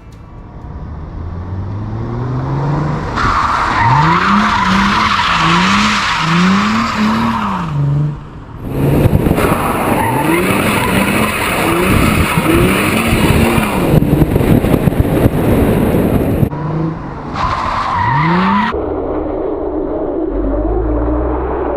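Mercedes SLK320's M112 V6 revving up and down repeatedly while the tyres screech in three long skids, the car being drifted. Near the end the screeching stops and the engine settles to a steadier, lower note.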